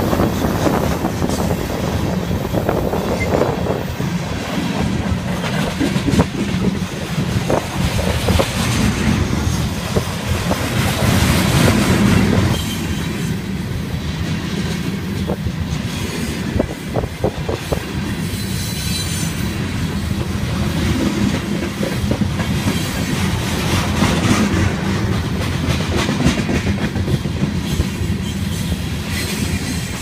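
Freight train of coal hopper cars rolling past close by: a steady rumble of steel wheels on rail with frequent clicking as the wheels cross rail joints, and some high wheel squeal.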